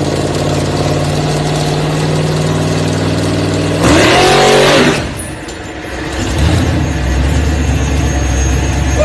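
Car engine held at steady high revs on a dyno. About four seconds in there is a louder, noisier burst lasting about a second, after which the engine note drops away to a steady low drone.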